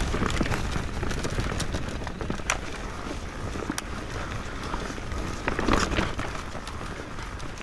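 Mountain bike ridden along a forest singletrack: a steady rumble of tyres rolling over dirt and roots, with the bike rattling and sharp clicks and knocks here and there, and a louder scraping swell a little before six seconds in.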